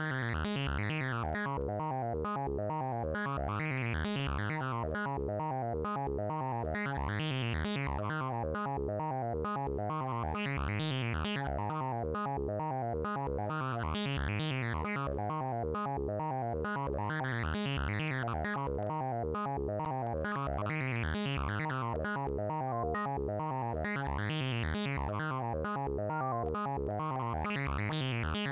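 Wavetable synthesizer voice playing a fast repeating sequence of short pitched notes. About every three and a half seconds its tone brightens in a sweep that rises and falls.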